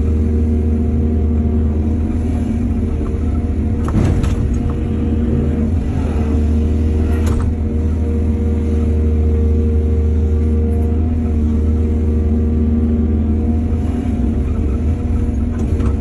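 Excavator's diesel engine running steadily with a deep hum. A brief rush of noise comes about four seconds in and another around seven seconds.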